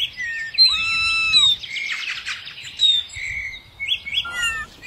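Songbirds chirping and whistling: held whistled notes that dip at their ends, broken by quick rising chirps, in a repeating pattern.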